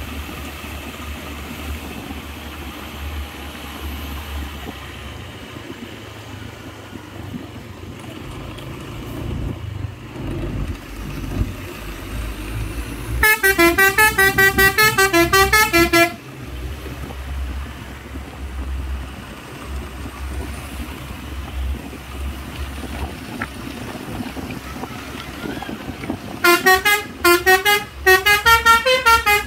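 Telolet multi-tone horn on a cement mixer truck playing a quick run of stepped notes for about three seconds, halfway through, then starting again a few seconds before the end. A low truck engine rumble runs underneath.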